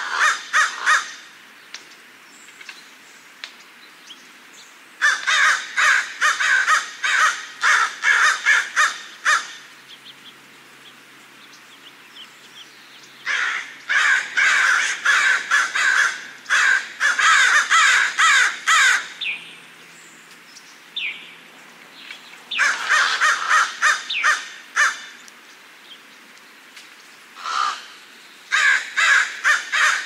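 Crows cawing in bouts of rapid, closely spaced caws, with pauses of a few seconds between bouts and a single caw shortly before the last bout.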